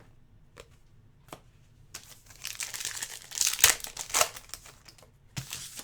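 Trading cards and their packaging being handled: a few light clicks, then crinkling and rustling from about two seconds in, lasting about two and a half seconds with a sharp crackle past the middle, and a short crackle near the end.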